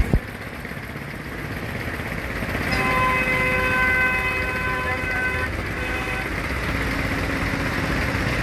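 A vehicle horn sounds as one steady multi-tone blast for about three seconds, starting a little under three seconds in, over a steady wash of road traffic noise. A sharp click comes right at the start.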